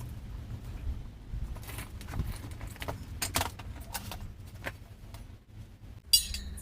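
Metal tools and parts clinking and knocking during work on a motorcycle's front wheel, with one loud ringing metallic clang near the end.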